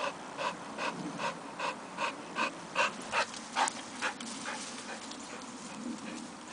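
Bulldog (Olde English Bulldogge type) panting hard and rhythmically, about two and a half breaths a second, fading after about four seconds as the dog moves away.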